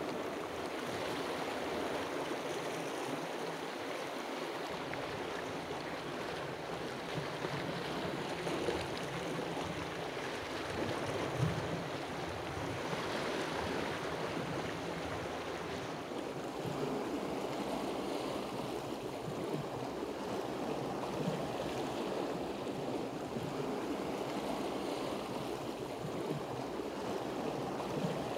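Steady wash of sea waves on a rocky shore.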